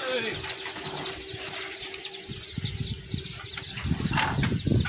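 A bird cheeping over and over: short high notes that fall in pitch, about three a second, with dull low rustling and thumping in the last second.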